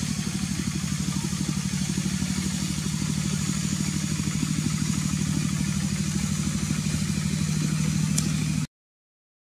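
An engine running steadily at idle with a fast, even pulsing beat, cutting off suddenly near the end.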